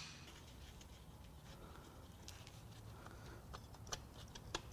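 Ringing of a hammer blow on a brass drift dies away at the start, then a near-quiet shop hum. Over the last second or so come a few light metallic clicks as a wrench is fitted onto a connecting-rod cap nut of the seized engine.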